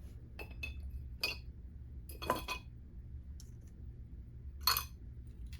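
Glass jar of cleaning solution clinking as small carburetor parts are handled in it: a handful of short, ringing clinks, the loudest about two seconds in and again near the end.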